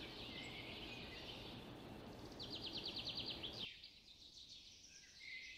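Faint outdoor nature ambience: scattered bird chirps over a steady background hiss, with a rapid pulsed trill of about ten pulses a second around the middle. The low background drops away abruptly a little before four seconds in, leaving only the high chirps.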